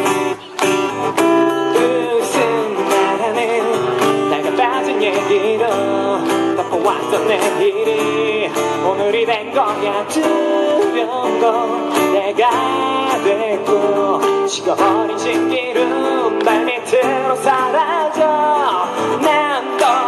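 A male singer-guitarist performing live, singing while strumming a steel-string acoustic guitar through the stage sound system.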